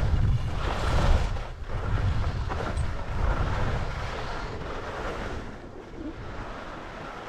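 Wind buffeting an action camera's microphone during a downhill ski run: a gusty low rumble with a rising and falling hiss of skis on snow. It eases off somewhat over the last couple of seconds.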